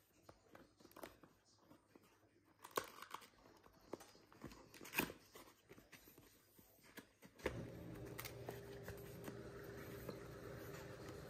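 Cardboard box being handled and opened: scattered scrapes and a few sharp snaps as the tucked flaps are pulled free. About two-thirds of the way through, a steady low hum starts and runs on under the handling.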